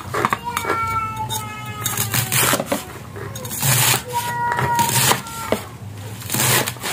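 A stainless cleaver chopping bok choy (pechay) stalks on a plastic cutting board: irregular knocks, some quickly repeated. Short high-pitched animal calls sound between the chops, just after the start and again around the middle.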